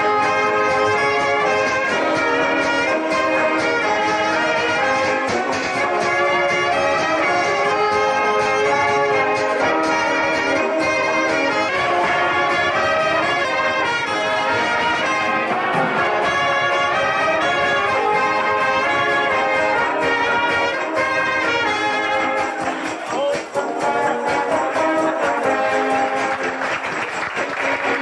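Brass band music: a wind band playing, with trumpets and trombones to the fore.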